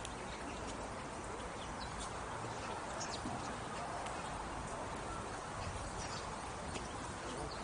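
Steady outdoor background hiss with scattered faint, short, high clicks at irregular intervals.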